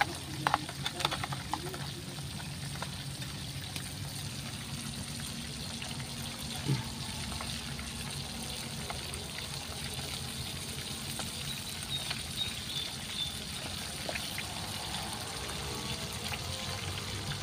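Whole fish frying in oil in a wok, with a steady sizzle. A few sharp clicks of a metal spatula come in the first second or two, and a single knock about seven seconds in.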